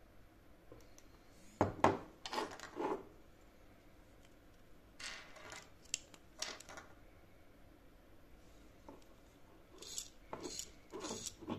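Handling of small hard plastic parts from a disassembled wireless follow-focus motor: clicks and brief rattles in three short clusters, about two seconds in, around five to seven seconds in, and near the end.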